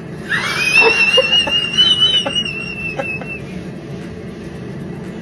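A high-pitched whistling squeal, rising at the start and then held with a slight wobble for about three seconds before fading, with a few faint clicks under it.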